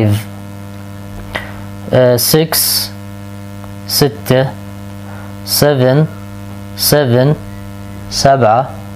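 Steady low electrical hum, mains hum in the recording, under short spoken words.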